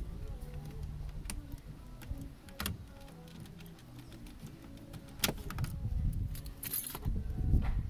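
Background music with a steady bass line, over metallic clicks and key jangles from work on a Vauxhall Astra G's ignition barrel and steering column. The clicks come several times, the loudest near the end.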